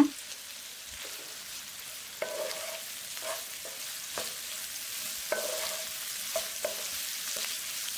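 Sliced onions and fresh curry leaves sizzling in oil in a nonstick pan, stirred with a wooden spatula that scrapes the pan now and then.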